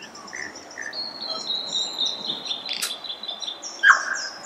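Birdsong: a steady run of high, quickly repeated chirps, with a few lower whistled notes, a sharp click about three seconds in and a louder note near the end.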